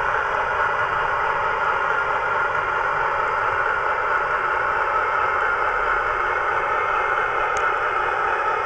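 Recorded Class 60 diesel engine sound from a Howes DCC sound decoder in a Hornby Class 60 model locomotive, played through its bass reflex speaker as the model runs. It holds one steady, unchanging drone with no clear rise or fall in pitch.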